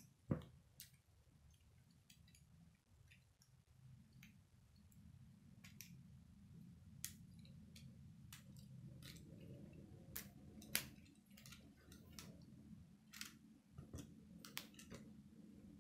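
Plastic K'nex pieces being handled and snapped together: irregular sharp clicks, with a louder snap just after the start and another a little past the middle, over a faint low hum.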